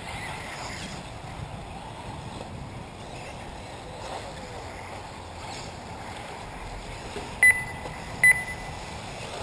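Steady noise of 1/8-scale electric RC buggies running around a dirt track, with two short, loud high-pitched beeps about a second apart near the end.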